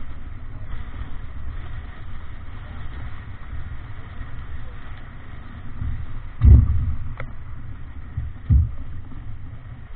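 Wind buffeting the microphone and water rushing along the hull of a Davidson 36 sailboat heeled under sail through choppy waves, with two heavy thumps about six and a half and eight and a half seconds in.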